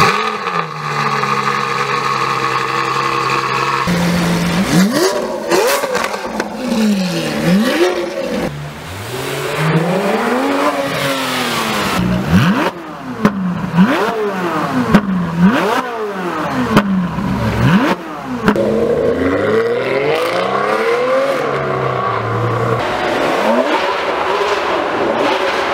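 High-performance car engines revving hard again and again, each blip rising sharply in pitch and falling back, after a steady held engine note for the first few seconds.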